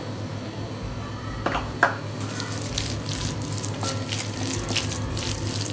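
A hand mixing and squeezing a moist mixture of chopped boiled egg, spices and flour in a glass bowl: soft squelching and crackling, thickening from about two seconds in. A couple of light knocks about a second and a half in.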